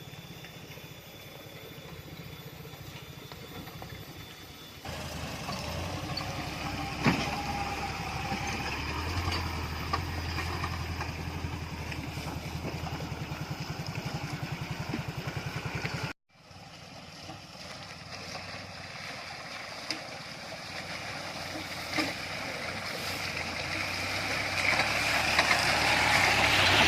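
Off-road vehicle's engine running as it drives over a rough dirt track, with a few sharp knocks and bumps. The sound cuts off suddenly about two-thirds of the way through, then resumes, and a rushing noise builds louder toward the end.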